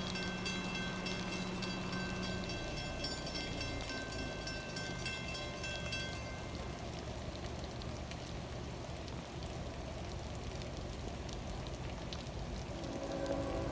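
Steady hiss of rain falling. A faint set of steady tones fades out in the first few seconds, and a new chord of steady tones comes in near the end.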